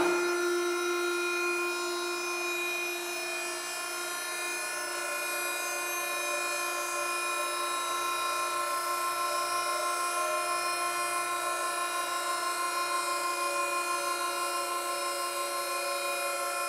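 Tilt drive of a BE-LSPM 250 TR tilt-over dough mixer running as the mixer head and bowl are raised: a steady mechanical whine made of several tones, which cuts off abruptly at the end.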